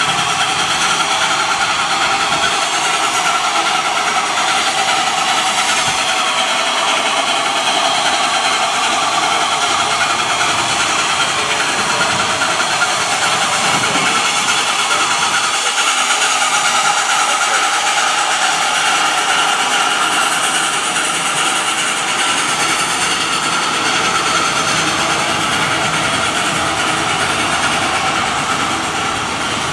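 Durango & Silverton K-36 2-8-2 steam locomotive No. 481 standing in steam on a turntable while it is turned, giving a steady loud hiss.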